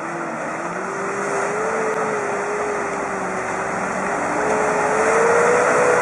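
A four-wheeled armored car's engine running as it wades through a shallow stream, with water churning and splashing around the hull. The engine note climbs slowly and it grows louder as the vehicle comes closer.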